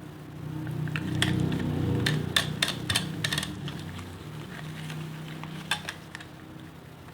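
A knife cutting through a bar of soap, with the soap cubes snapping off in a quick run of crisp clicks between about one and three and a half seconds in, and one more click near the end.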